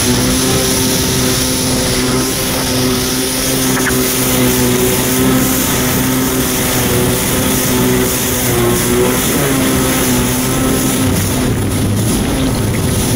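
Kawasaki 650SX stand-up jet ski's two-stroke twin engine running steadily at speed, over the hiss of spray and water rushing past the hull. The engine note dips slightly about nine seconds in.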